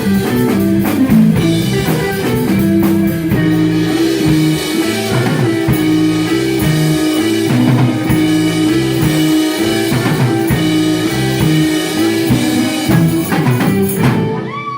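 Rock band playing a blues-rock instrumental on guitar and drum kit, with long held notes over steady drumming, until the music breaks off near the end.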